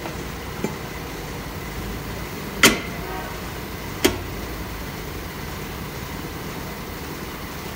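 Rear brake drum of a Toyota Yaris being fitted over the brake shoes and seated on the wheel hub. A light tap is followed by two sharp metal knocks about a second and a half apart; the first knock is the loudest and rings briefly.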